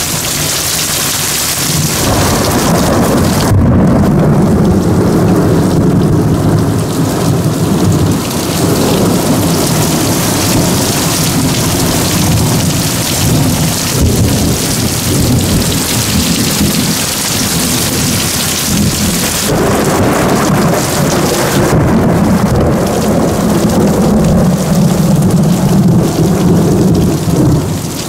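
Heavy thunderstorm: a downpour of rain pours steadily, with long rolls of thunder rumbling through it. One roll builds about two seconds in, and another about two-thirds of the way through.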